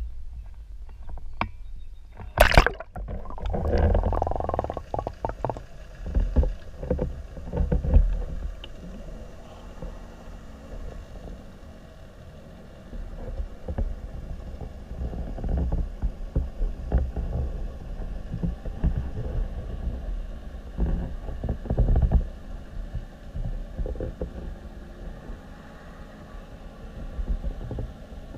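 A splash about two and a half seconds in as an action camera plunges into lake water. Then comes the underwater sound of water moving around the camera housing: a low, uneven rumble with irregular knocks.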